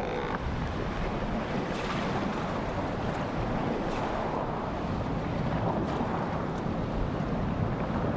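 Steady rushing of sea waves and wind, an ocean ambience.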